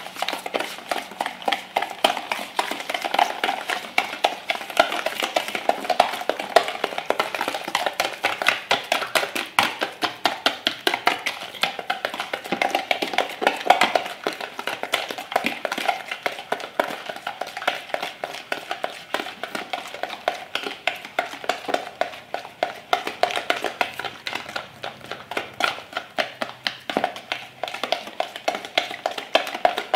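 Wire whisk beating egg and sugar in a plastic bowl: a rapid, even clicking and scraping of the wires against the bowl.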